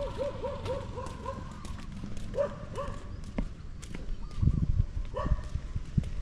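A dog whining in a wavering pitch, then a few short barks. There are loud low rumbling thuds on the microphone about two-thirds of the way through.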